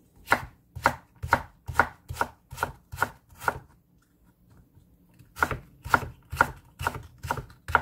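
Chef's knife cutting Korean radish into thin strips on a wooden cutting board: sharp knocks of the blade on the board, about two a second. The chopping stops for about a second and a half midway, then carries on at the same pace.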